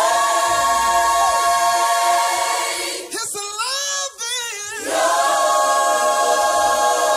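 Worship singers hold a sustained chord, with the bass and band dropped out so it is nearly a cappella. About three seconds in, a single voice breaks into a short wavering run, and then the held chord comes back.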